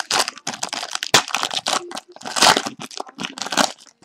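Trading-card pack wrapper being torn open and crinkled by hand, in irregular bursts with a sharp snap about a second in and the loudest rustle a little past halfway.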